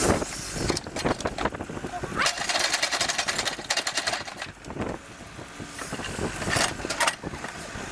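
Beaver-dam sticks and debris crackling and snapping under an excavator, with a stretch of rushing noise about two seconds in.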